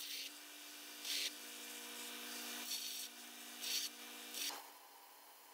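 Small power sanding tool running with a steady hum, with about five short bursts of abrasive scraping as it sands stuck weld-wire bits off a laser-welded stainless steel part; the motor stops about four and a half seconds in.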